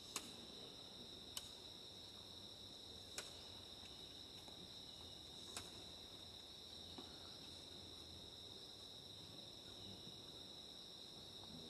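Faint, steady high-pitched insect chorus, with a few sharp clicks in the first half.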